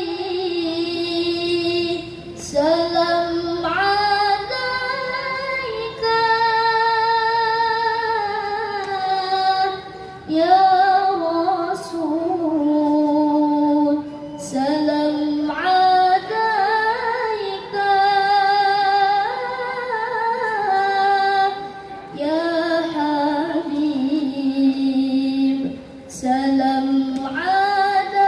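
A young woman reciting the Quran in melodic tilawah style into a microphone. She holds long notes with vibrato and slides between pitches, in phrases of several seconds broken by short pauses for breath.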